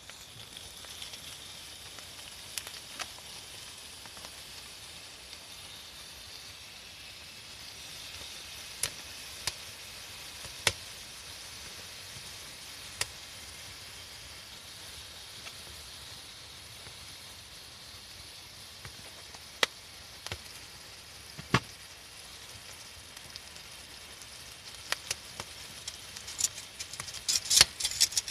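Wood fire crackling: a steady soft hiss with scattered sharp pops, which come in a quick flurry near the end.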